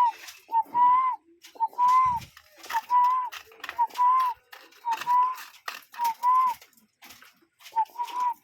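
A cuckoo repeating its two-note whistled call about once a second: a short note runs straight into a longer, slightly higher one. Sharp crackles sound between the calls.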